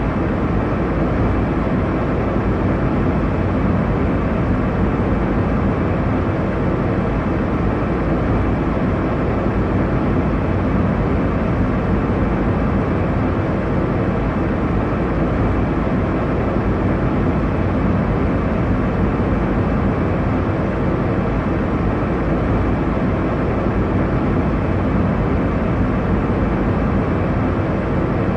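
Airliner cabin noise: a steady, deep rushing hiss of engines and airflow heard from inside the passenger cabin, unchanging throughout.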